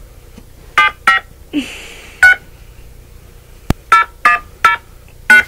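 Touch-tone keypad beeps from a phone calling app as a number is dialed digit by digit, about seven short beeps at uneven spacing, with one sharp click a little before the last four.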